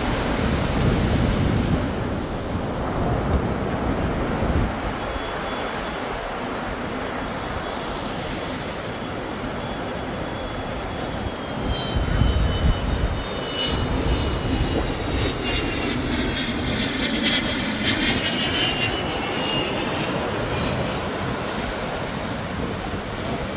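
Ocean surf and wind, a steady rush with swells of louder wave noise. Past the middle, a high whine slowly falls in pitch as it passes over, then fades.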